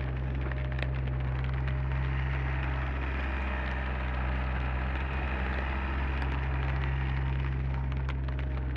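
Komatsu PC30 mini excavator's diesel engine running steadily, with a hiss over it that swells a little in the middle.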